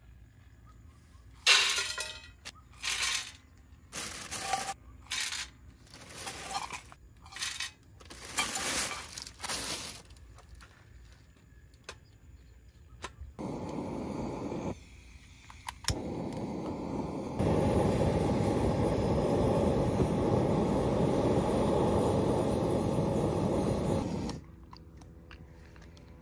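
A run of sharp clinks and clatters of hard objects being handled, then a steady rushing noise that grows louder partway through and cuts off suddenly after about ten seconds.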